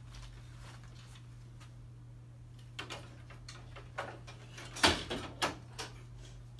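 Plastic knocks and clacks of a paper roll's holder spindle being set down into the roll slot of a Canon imagePROGRAF 4100 large-format printer: a few scattered knocks, the loudest a sharp clack just before five seconds in, followed by a few lighter ones.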